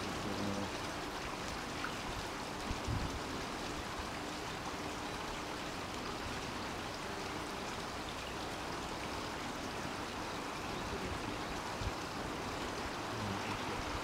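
A small shallow brook running steadily over stones, a constant even rush of water.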